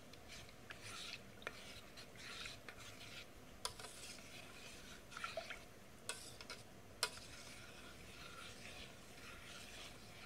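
A steel spoon stirring milk in a stainless steel pot: soft, repeated scraping against the bottom and sides, with a few sharp clinks of the spoon on the metal. The stirring is meant to dissolve the palm jaggery and spices in the milk.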